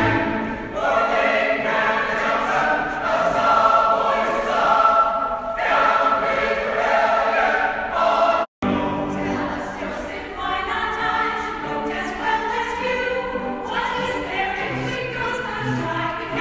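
A group of men and women singing together as a choir. The sound cuts out for an instant about eight and a half seconds in, then the singing carries on.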